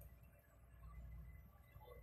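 Near silence: only a faint, steady low hum.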